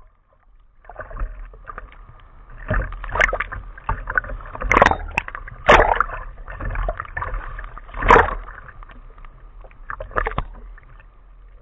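Choppy sea waves splashing and sloshing against a camera held at the water's surface, in irregular surges, the biggest a few seconds in and again about two-thirds through.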